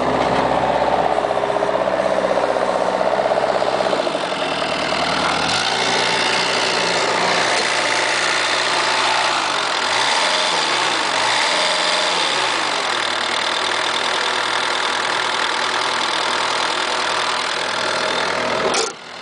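Bobcat 334 mini excavator's diesel engine running steadily, close up at the open engine compartment. Its pitch dips and recovers briefly a few times, and the sound drops off suddenly near the end.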